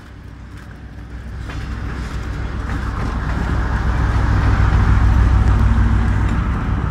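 Diesel engine of a DR1-series diesel multiple unit running as the train passes close beneath. It is a low, steady drone that grows louder over the first four seconds or so, then eases slightly near the end.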